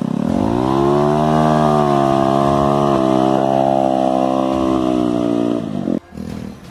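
Single-cylinder motorcycle engine revving up over the first second, then held at high, steady revs; it cuts off abruptly about six seconds in.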